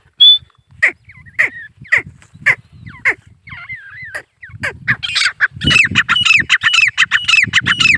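Male grey francolin calling: sharp, downward-sweeping notes at first, a little under two a second, then from about five seconds in a faster, louder run of repeated call phrases.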